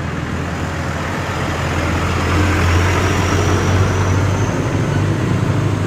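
A motor vehicle's engine running with a steady low hum, getting louder about two seconds in.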